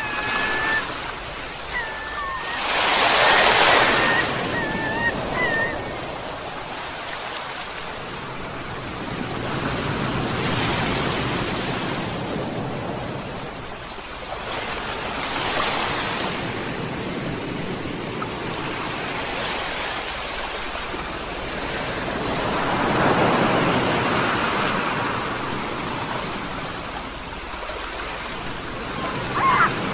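Sea waves washing onto the shore, swelling into a louder surge every five to seven seconds. Short seagull calls come in the first few seconds and again right at the end.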